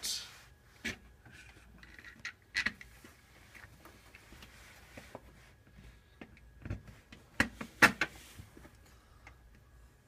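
Scattered light clicks and knocks of hands and a screwdriver working a plastic wall plate, with the loudest a quick cluster of knocks about eight seconds in.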